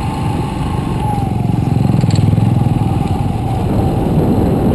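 Motorcycle engine running while riding, with a steady low rumble that grows a little louder about two seconds in.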